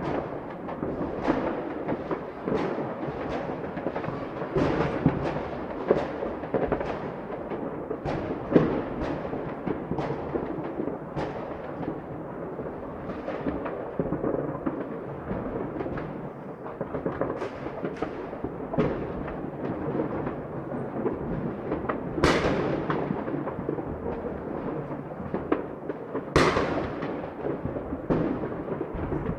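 Fireworks display: many sharp bangs and booming bursts, each fading away, over a constant crackle and rumble. Two especially loud bursts come in the last third.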